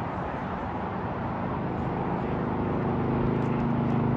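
A steady rushing noise, joined about a second and a half in by a motor vehicle engine's steady hum that slowly grows louder.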